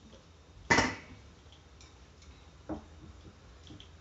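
A single loud, sharp clack a little under a second in, ringing briefly, then a softer click near three seconds: cookware being handled at a gas stove.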